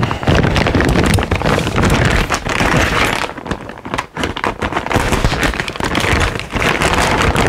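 Clear plastic bag holding a new cable kit crinkling and crackling loudly as it is handled and pulled open by hand, with a brief lull about four seconds in.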